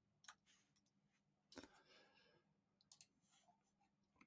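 Near silence with a few faint computer mouse clicks, two of them in quick pairs like double-clicks.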